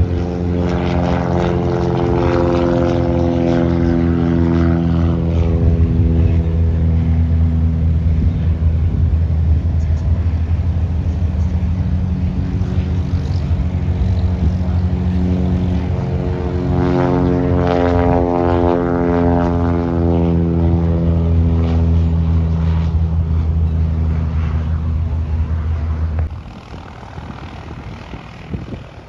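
Single-engine propeller airplane flying low along the runway, its engine and propeller making a steady, loud drone with a sweeping, phasing tone as it passes. The drone drops away abruptly near the end.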